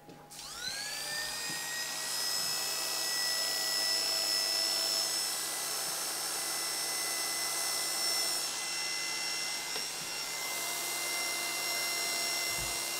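Electric pet hair clippers switching on, spinning up with a rising whine just after the start, then running with a steady high whine while shaving a patch of fur from a cat's scruff.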